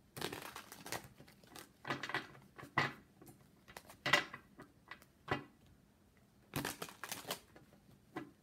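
A deck of tarot cards shuffled by hand: a series of short papery bursts, about six of them, the longest at the start and again near the end.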